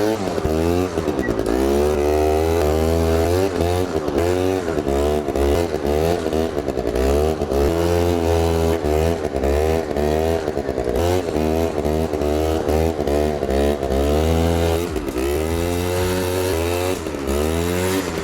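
Quad's small two-stroke engine revving up and down over and over, its pitch rising and falling again and again as the throttle is worked for wheelie attempts.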